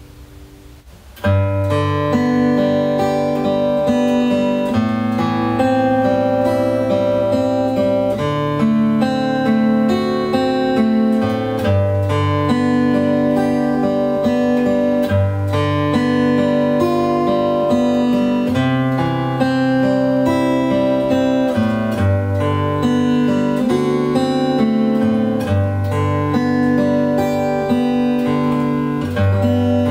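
Solo acoustic guitar playing a fingerpicked arpeggio melody, starting suddenly about a second in.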